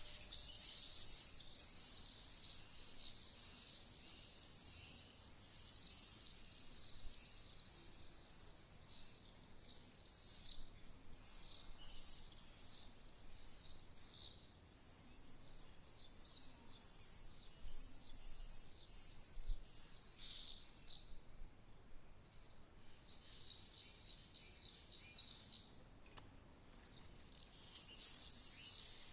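Swallows twittering: a rapid, overlapping stream of short, high chirps. The chirping breaks off briefly twice in the last third, then comes back loudest near the end.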